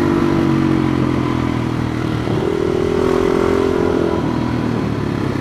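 Motorcycle engine running at road speed while riding, its pitch stepping up about two seconds in and settling back down a couple of seconds later.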